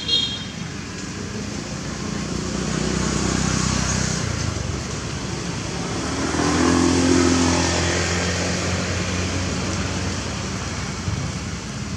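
Motor vehicles passing on a road, an engine hum that swells and fades twice, louder the second time about seven seconds in. A brief high squeak at the very start.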